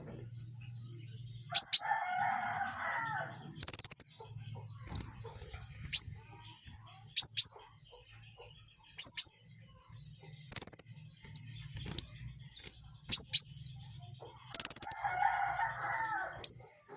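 Pentis raja songbird calling: short, sharp, very high-pitched notes that fall steeply in pitch, repeated irregularly about once a second. Twice, near two seconds in and near the end, a lower chattering call about a second long breaks in. A faint steady low hum runs underneath.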